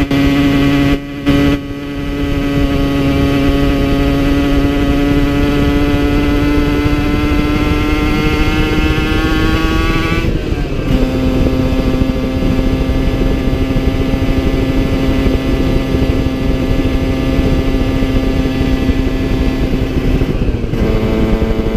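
Two-stroke engine of a Yamaha TZR50 with a 70cc Airsal top end and Technigas exhaust, running at high revs under way. Its pitch climbs slowly, then drops suddenly at a gear change about halfway through and again near the end, with steady wind noise underneath. The owner says the top end was worn out and way down on power by this point.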